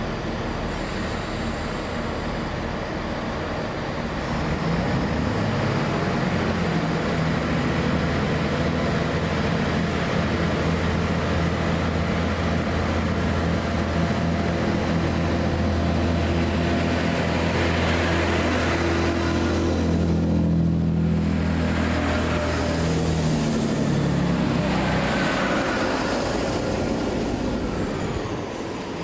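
Class 66 diesel locomotive's two-stroke V12 engine running with a steady low drone as a freight train passes. It grows louder about four seconds in and fades near the end, with a thin high whine above it.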